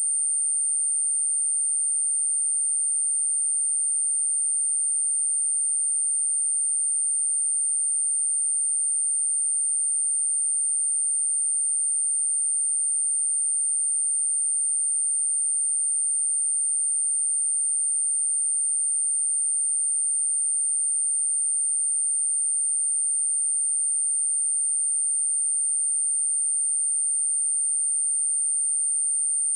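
A pure 8926 Hz sine-wave test tone, held steady at one unchanging high pitch, with nothing else in it.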